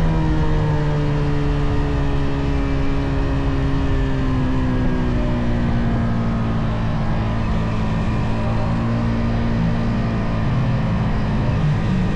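Yamaha XSR 155's stock single-cylinder engine and exhaust running under way, its pitch falling slowly over the first ten seconds as the revs drop, then holding steady.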